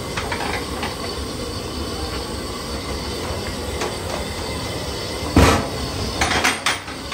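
Steady low roar of a high-pressure gas burner under a large kadai. About five seconds in there is a loud metallic knock, followed by a few quick clanks as a big aluminium cooking pot is gripped and lifted by its metal handles.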